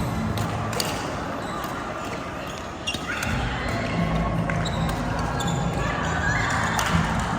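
Badminton rally: rackets hitting the shuttlecock in repeated sharp cracks.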